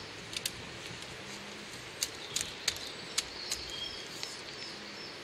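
Woven willow rods clicking and creaking as the fence is pressed down and worked by hand: a handful of sharp ticks spread over a few seconds, with birds chirping in the background.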